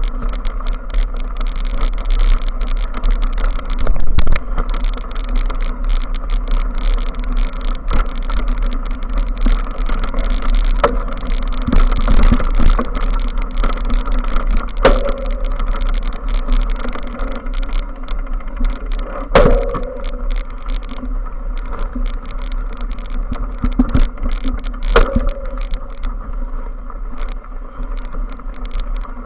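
Rumble and rattle of a mountain bike ridden over rough grass, heard through a bike-mounted action camera: steady tyre and wind noise with frequent knocks and clicks from the bike over bumps, a few of them sharper and louder.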